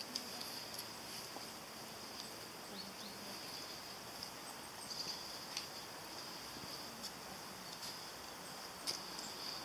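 Faint outdoor ambience: a steady high-pitched hiss with a few short, sharp clicks, two of the clearest about halfway through and near the end.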